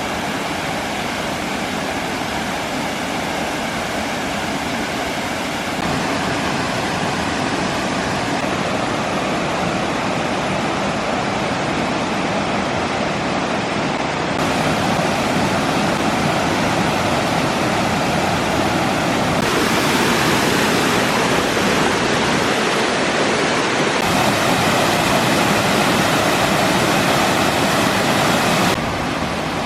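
Waterfall on the Little Duck River, a steady dense rush of falling water that gets louder in a few sudden steps and drops back near the end.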